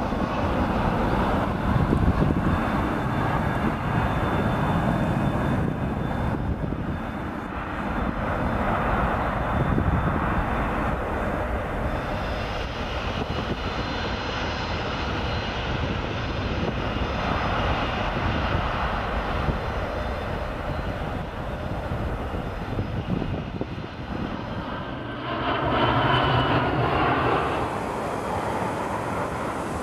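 Turbofan jet engines of transport aircraft running at takeoff power as the planes climb steeply, a continuous roar with a faint high whine. The sound changes about 25 seconds in as the picture cuts to a takeoff roll.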